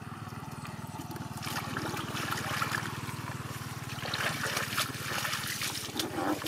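Hands splashing and sloshing through a shallow muddy puddle while groping for fish, with many small splashes; the splashing starts about a second and a half in and is loudest near the end.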